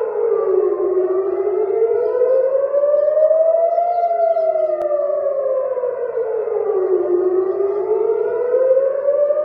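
Civil-defence air-raid siren wailing, its pitch slowly rising and falling about every six seconds: a warning of an incoming rocket attack.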